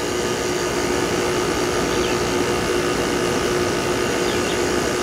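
A 2001 General Electric Quiet Aire window air conditioner running steadily, its LG Hero compressor humming and its fan pushing air. The compressor has quieted down after several minutes of running, following a long time sitting unused.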